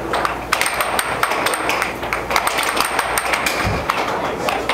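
Air hockey puck clacking off plastic mallets and table rails in rapid, irregular strikes during fast play, over a steady hiss from the table's air blower.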